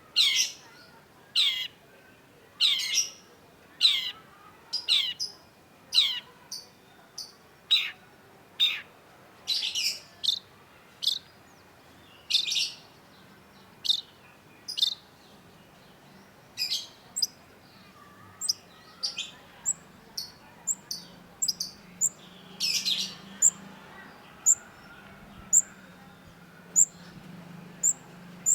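Long-tailed shrike calling: a series of harsh, downward-sweeping calls about once a second. About two-thirds of the way through, they give way to short, thin, high-pitched notes repeated at much the same pace.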